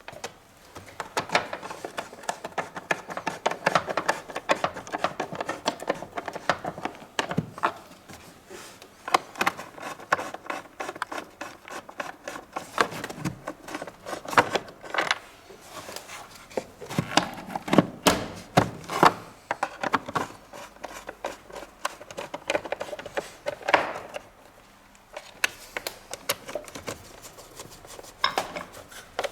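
Irregular clicks, knocks and rubbing of plastic parts being handled: the air filter housing and filter element of a Volvo V50 being worked on by hand.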